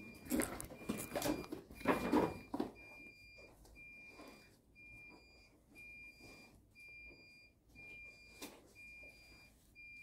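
Electronic alarm beeping at a steady pace, one high half-second beep about every second, with loud rustling and handling of clothing over the first couple of seconds.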